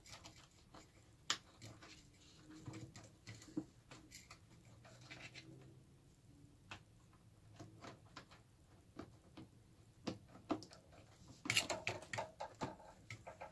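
Hands working at the plastic housing of a VW fresh air box: scattered small clicks, taps and scrapes, with a burst of louder rattling clicks near the end.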